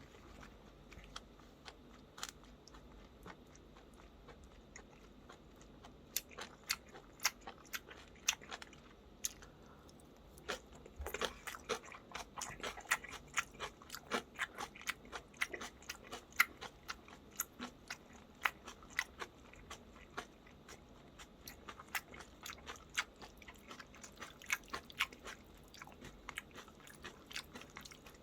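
A person chewing crunchy food with the mouth, many irregular crisp crunches. It is faint for the first few seconds, then turns steady and dense from about a quarter of the way in.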